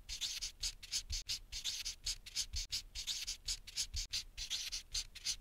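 Pen scribbling on a drawing surface: a run of quick, scratchy strokes, about three a second.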